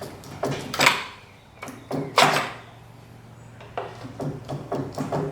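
Metal knocks and clanks of hand tools working a pivot pin out of a mini skid steer's hydraulic cylinder mount: two sharper hits about one and two seconds in, then a run of lighter taps near the end.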